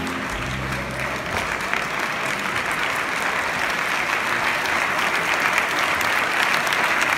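The last notes of the rumba music stop about a second in, and large-hall audience applause takes over, growing louder toward the end.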